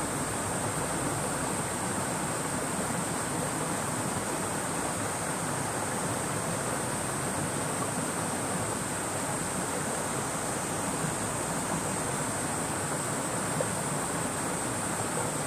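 Steady rushing of a wide river's current flowing past its embankment, with a continuous high-pitched drone of cicadas over it.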